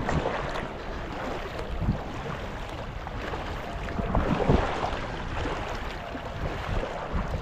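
Kayak paddle strokes splashing and dripping in the water, with wind rumbling on the microphone; the splashes swell louder a few times, most strongly about four and a half seconds in.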